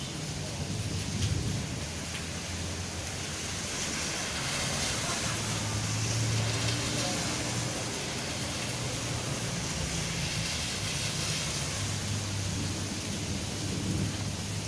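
Steady heavy rain, with a low rumble swelling and fading beneath it several times.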